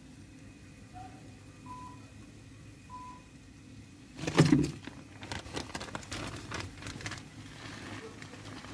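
Two short electronic beeps a little over a second apart, like an appliance keypad. About four seconds in comes a single loud thump, followed by a couple of seconds of light kitchen clatter and knocks.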